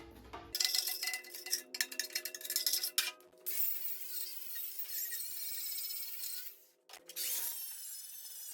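Angle grinder working steel. It starts with scratchy stop-start bursts as the wheel bites in, then settles into a steady grind, breaks off briefly near seven seconds, and grinds again.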